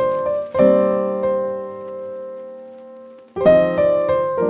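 Background piano music: chords struck and left to ring. One chord sustains and fades for about three seconds before fresh chords come in near the end.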